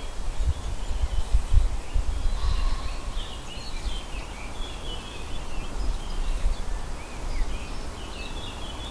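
Small birds chirping and twittering in spring song, the calls coming thickest from about two seconds in. Underneath, wind rumbles on the microphone, heaviest in the first couple of seconds.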